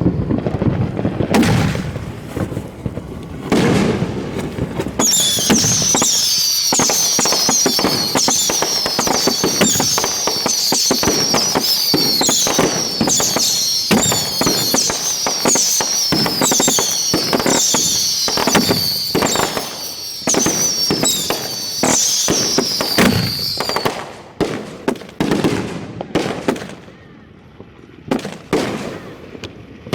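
Consumer fireworks going off at close range: a few separate bangs, then a dense barrage of rapid cracks and bangs overlaid with many shrill whistles, each falling in pitch, one after another. Near the end the barrage thins to scattered bangs.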